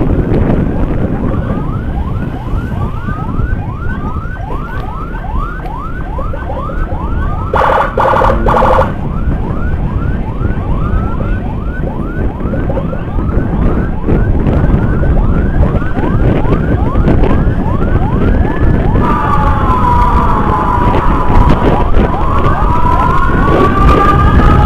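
Escort motorcycle's electronic siren running a fast cycle of falling sweeps, about three a second, with a short pulsed horn blast about eight seconds in. Near the end it switches to a slower rising and falling wail, with a second wailing tone alongside, over steady road noise.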